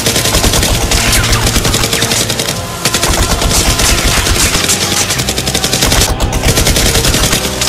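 Rapid automatic gunfire sound effect in long bursts, broken by two short pauses near three seconds and about six seconds in.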